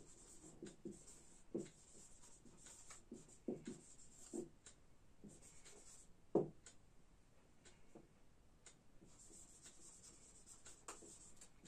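Faint marker pen strokes and taps on a whiteboard as words are written out, with one sharper tap about six seconds in.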